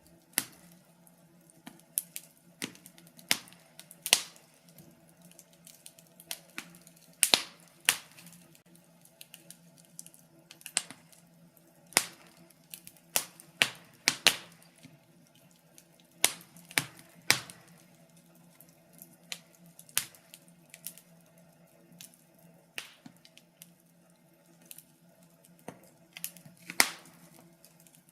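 Wood fire crackling in a fireplace: irregular sharp pops and snaps, some single and some in quick clusters, over a faint steady low hum.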